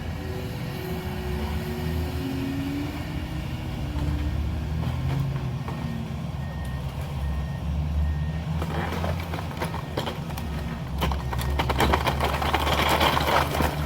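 A heavy diesel machine's engine runs and revs up and down. From about two-thirds of the way in, a dense run of cracking and crunching follows as wood and debris of the house break apart.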